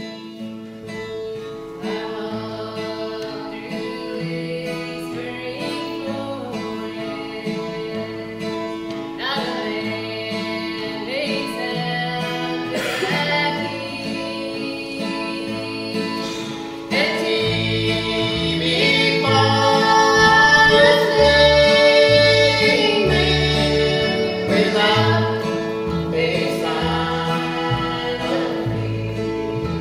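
A string band plays a bluegrass gospel song: a woman sings lead over a strummed acoustic guitar, with mandolin and upright bass. About halfway through, the band grows louder and the upright bass's low notes come in strongly, and a man's voice joins the singing near the end.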